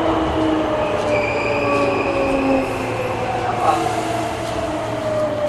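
Hankyu 8300 series train running through a subway tunnel, heard from inside the car: a steady rumble with several whining tones that slowly fall in pitch.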